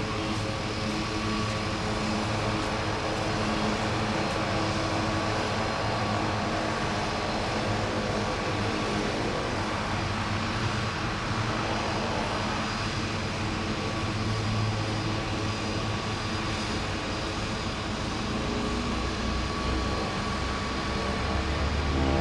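Seaplane's propeller engine running steadily during takeoff, with an even, unchanging drone.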